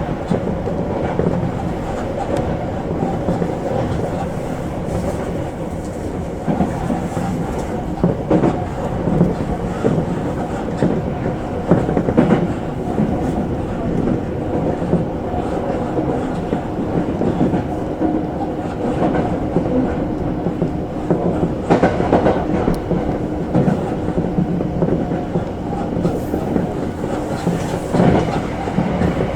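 Tobu Skytree Line local commuter train running between stations, heard from inside the front car: a steady rumble of wheels and running gear, with irregular clicks as the wheels pass over the track.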